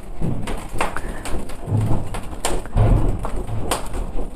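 Cardboard being fanned hard over a small charcoal grill to force stubborn coals to catch: repeated low whooshes about once a second, with a few sharp crackles from the burning coals.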